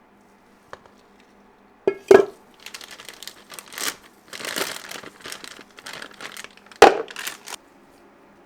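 Crinkling and rustling of a thin, crinkly material being handled, with two sharp knocks, one about two seconds in and one near the end.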